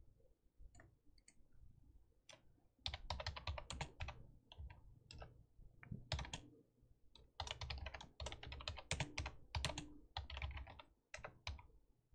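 Typing on a computer keyboard: bursts of quick keystrokes with short pauses, starting about three seconds in, after a few faint clicks.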